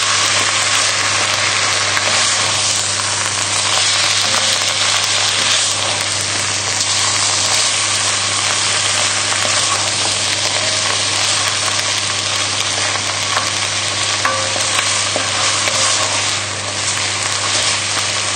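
Beef chunks and vegetables sizzling in a hot enamelled casserole pot while a spoon stirs them, the beef being browned and lightly sealed. A steady low hum runs underneath.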